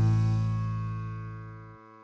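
Music: a held chord ringing and fading steadily, its low notes cutting off near the end.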